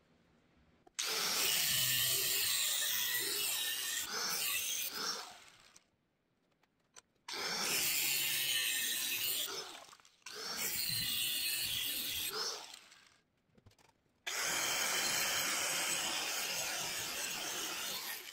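Handheld angle grinder cutting and grinding the threaded steel legs of U-bolts held in a vise. It runs in four separate bursts of a few seconds each.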